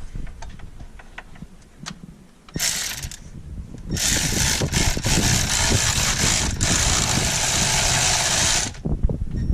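Handheld power tool, likely the cordless tool used on the thermostat housing bolt, running in two bursts: a short one, then a longer one of about five seconds that stops near the end.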